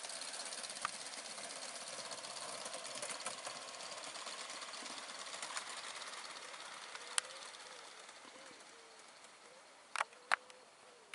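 Gauge 1 model train running along the garden track: a fast, rhythmic chatter that fades away as the train draws off. Near the end come a few sharp clicks, the loudest two about ten seconds in.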